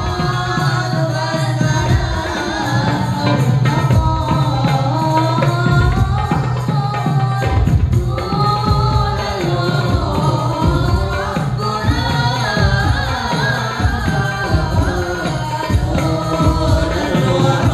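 Sholawat, a devotional Islamic song, sung with a wavering melodic voice over steady frame-drum (rebana) strokes.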